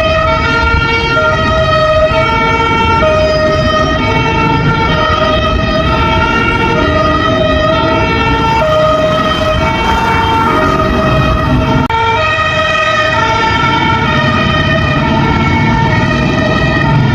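Fire truck siren sounding a two-tone pattern, switching back and forth between a higher and a lower pitch throughout, with a low rumble beneath.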